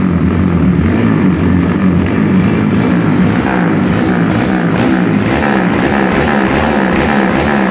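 Honda Titan motorcycle's single-cylinder four-stroke engine, bored out to 70 mm (222 cc), running loud while the throttle is blipped, its pitch rising and falling over and over.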